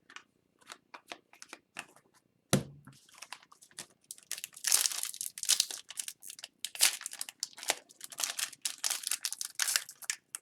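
Crinkling and tearing of a foil trading-card pack wrapper being opened by hand, with a sharp knock about two and a half seconds in. The crinkling grows dense and busy from about four seconds on.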